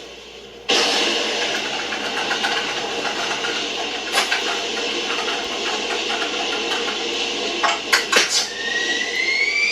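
Electronic toy playing a rocket-power sound effect: a rushing roar that starts suddenly about a second in and holds steady, with a few clicks, and a rising whine near the end.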